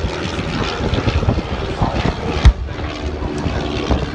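Propeller-driven biplanes droning overhead in formation, with wind buffeting the microphone. About two and a half seconds in, a single loud boom from a ground pyrotechnic explosion.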